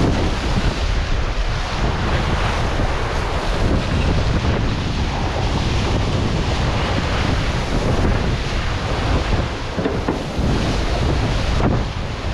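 Wind buffeting the microphone and water rushing past the hulls of an Extreme 40 racing catamaran under sail, a steady loud rush.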